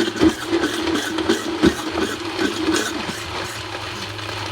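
Vitamix S50 blender motor running at a turned-down speed, chopping batter with chunks of fruit and coconut. Pieces knock and rattle against the container for the first three seconds or so, then it runs more evenly.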